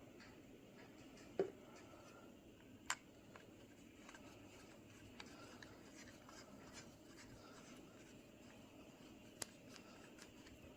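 Near silence with quiet room tone, broken by a few light clicks and small handling sounds: three sharper clicks, at about one and a half, three and nine and a half seconds in.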